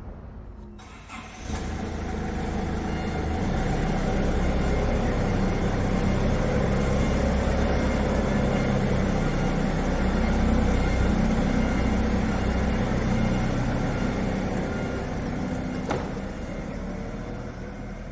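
An engine starts about a second in, builds up over a couple of seconds and runs steadily, then dies away near the end.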